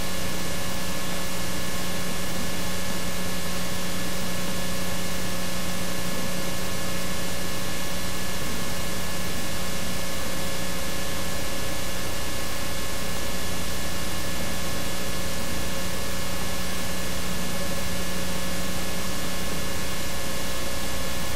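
Steady hiss with a constant electrical hum and no other sounds: recording noise, with nothing from the scene audible.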